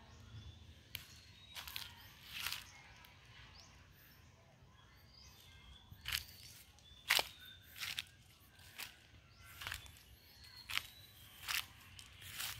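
Footsteps crunching through dry leaf litter, a few early on and then a steady step about every second from midway, with faint high chirps in the background.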